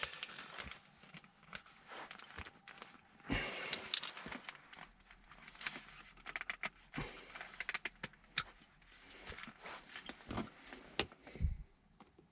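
Scattered small plastic clicks, knocks and rustles as a replacement gear knob is handled and pushed onto a Mercedes W204 gear lever, without it locking into place.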